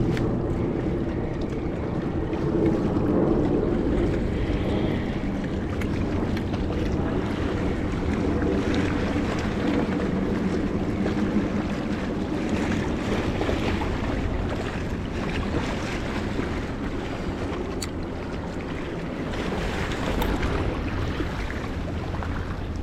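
Waves washing at a rocky seashore with wind buffeting the microphone, over a steady low motor drone.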